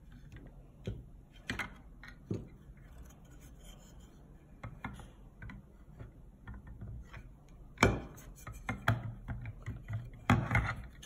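A large piece of agarwood being handled and shifted on a small plastic digital pocket scale: scattered wooden knocks, taps and rubbing, with the loudest knocks about eight seconds in and again near the end.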